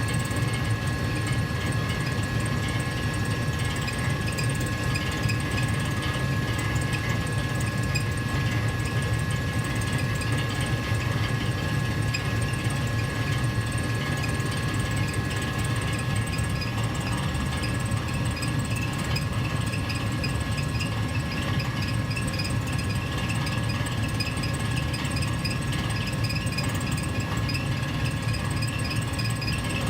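Gas furnace heater running steadily: an even low rumble with two faint constant high tones above it.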